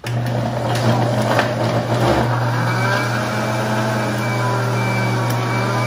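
Countertop jar blender switched on and running at full speed, blending pineapple, mint, ginger, kale and water into green juice. It starts abruptly, with pieces knocking in the jar for the first couple of seconds, then settles into a steady whir as the mix turns to liquid.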